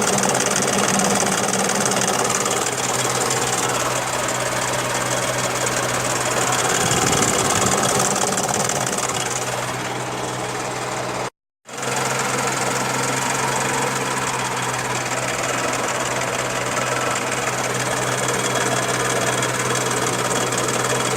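Daihatsu Charade car's engine running steadily, with the strange noise that the owner is recording. The sound cuts out completely for a moment about eleven seconds in.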